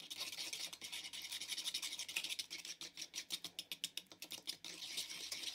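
Metal fork beating an egg into cake batter in a wooden bowl: quick, even scraping and slapping strokes, several a second.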